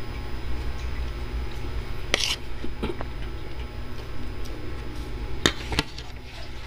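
Metal spoon and fork scraping and clinking against a ceramic plate while eating rice: a short scrape about two seconds in, then a few sharp clinks, two of them close together about five and a half seconds in, over a steady low hum.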